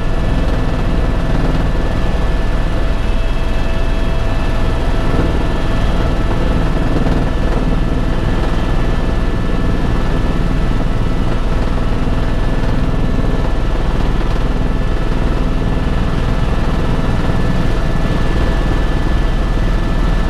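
Helicopter in flight heard from inside the cabin: a loud, steady drone of rotor and engine noise with a few steady high tones running through it.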